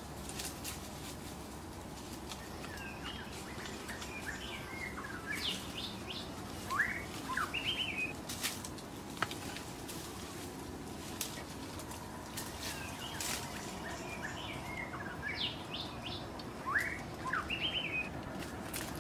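Bird chirping: a phrase of short, quick, mostly rising notes, heard twice about ten seconds apart, over steady low background noise with scattered light clicks.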